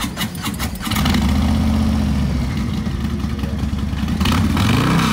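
A motorcycle engine cranks and fires about a second in, then runs at a steady idle and is blipped once near the end, its pitch rising and dropping back.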